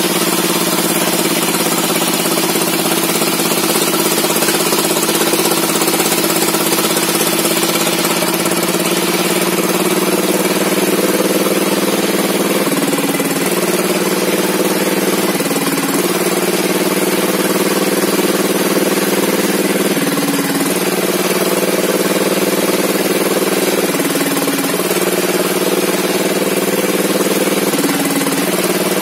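Sawmill engine running steadily, with its note dipping briefly every few seconds from about halfway through.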